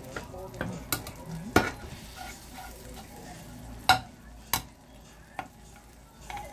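Slotted metal spatula stirring cubes of butter melting in a frying pan, with a light sizzle. Several sharp clinks of metal on the pan, the loudest about one and a half seconds in and again near four seconds in.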